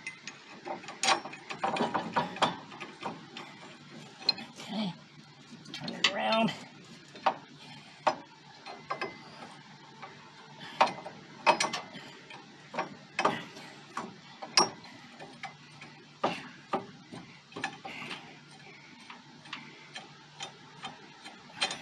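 Irregular metal clicks and clinks of a steel bolt and bracket parts being fitted by hand into a tow-bar mounting bracket.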